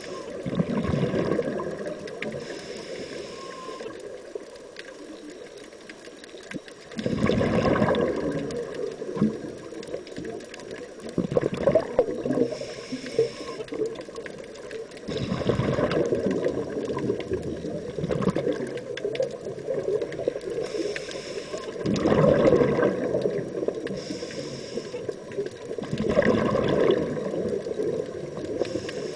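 Scuba diver breathing through a regulator underwater: exhaled bubbles gurgle in loud bursts every few seconds, with fainter hissing inhalations between them.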